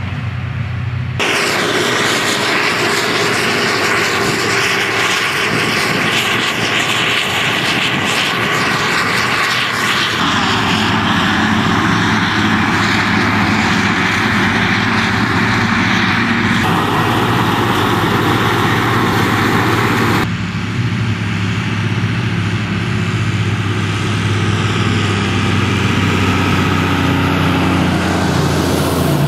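New Holland self-propelled forage harvester at work chopping grass, its engine and chopping drum making a loud, steady drone mixed with the engines of the tractors pulling silage trailers alongside. The sound changes abruptly several times where takes are spliced together.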